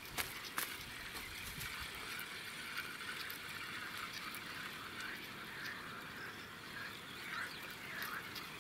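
Quiet outdoor ambience at a pond's edge: a steady low hiss with faint, scattered chirping, and a couple of light clicks near the start.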